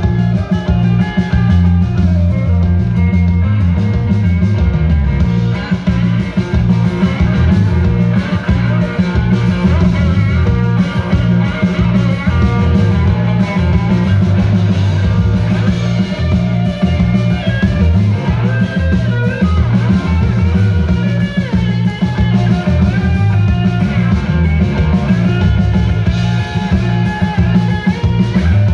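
Live rock band playing an instrumental passage: a hollow-body electric guitar with a Bigsby vibrato plays lead, with bent notes, over electric bass and drums.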